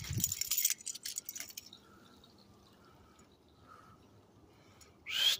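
A dog's claws and paws scrabbling and clicking on concrete pavers as it sprints off, for about a second and a half, then near quiet. A short, loud, rising squeal just before the end.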